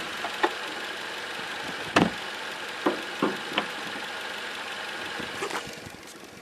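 A 2008 Toyota Corolla engine idling with a faint steady whistle from under the hood. Several sharp irregular clicks or knocks sound over it, the loudest about two seconds in.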